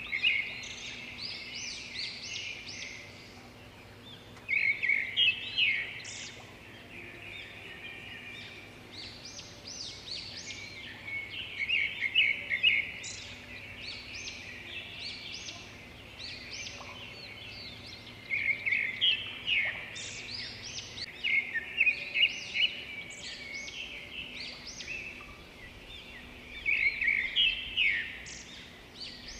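A small bird singing: bouts of quick, high chirps lasting two or three seconds, repeated every few seconds.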